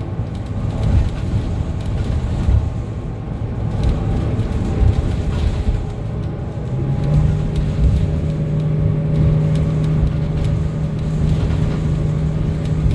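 Cabin sound of a 2025 Gillig BRT 40-foot CNG transit bus under way: the natural-gas engine and road rumble run steadily. A steady low hum sets in about seven seconds in.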